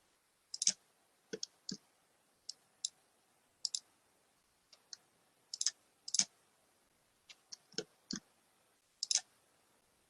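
Computer mouse clicking: a dozen or more sharp, irregularly spaced clicks, several of them in quick pairs.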